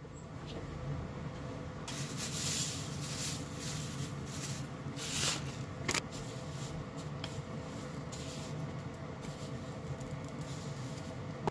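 Kitchen work sounds over a steady hum: a couple of bursts of hiss and a few sharp clicks or knocks.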